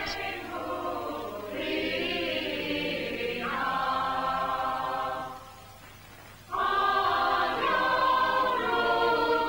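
A choir singing long held chords, changing chord a few times. It fades to a lull a little past the middle, then comes back louder.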